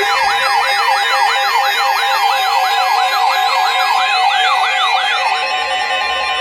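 Emergency alert signal: an electronic siren sweeping rapidly up and down, about four times a second, over steady alert tones. The sweeping stops about five seconds in, leaving a single steady tone.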